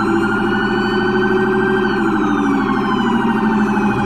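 Electronic ambulance siren from a toy ambulance: a rapid, steady warble with a slower rising and falling wail laid over it.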